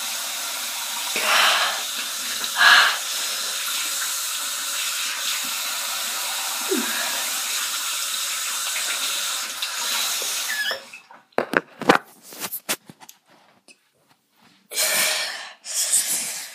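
Bathroom tap running into a sink, with two louder splashes about one and three seconds in. The water cuts off suddenly about two-thirds of the way through, followed by a few knocks and short rustles.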